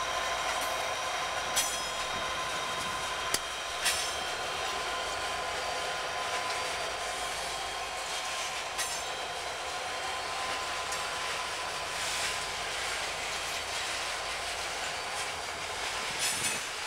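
Freight train of coal hopper cars rolling past: a steady rumble of steel wheels on rail, with a faint high steady whine and a few sharp clacks as wheels cross rail joints.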